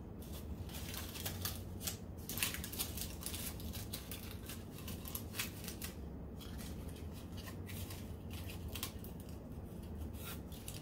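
Aluminium foil crinkling and crackling in short, irregular rustles as it is pressed and folded by hand around a shot glass.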